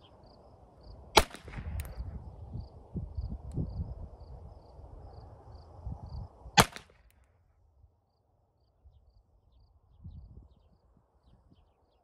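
GSG 1911 .22 LR pistol firing CCI Mini-Mag rounds, two single aimed shots about five seconds apart, each a sharp crack, with a fainter tick just after the first.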